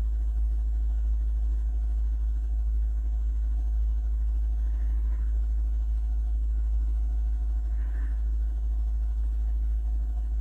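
Steady low hum with faint background noise, typical of a microphone picking up electrical hum.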